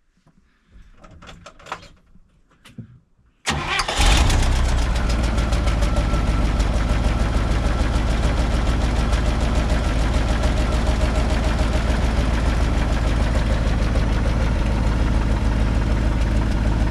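A few faint clicks and knocks, then about three and a half seconds in an engine starts, catching almost at once, and runs steadily at idle.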